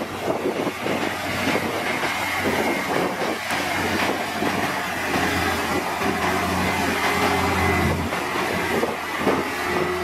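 Komatsu D53P crawler bulldozer at work: its diesel engine runs steadily under the clanking and rattling of its steel tracks, with a faint high whine.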